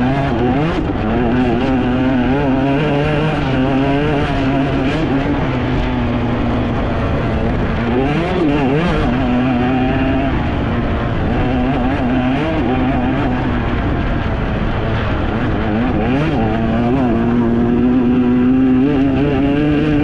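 Enduro dirt bike engine ridden hard off-road, its revs rising and falling constantly with the throttle. Deeper dips and climbs in pitch come about 8 and 16 seconds in.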